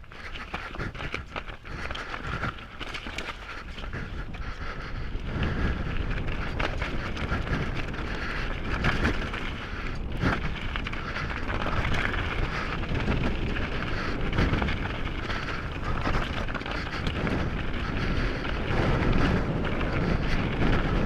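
Mountain bike riding over a rough trail: tyres crunching over stones, with the frame and chain rattling and clattering over bumps and wind buffeting the microphone. The noise builds over the first few seconds as the bike gathers speed.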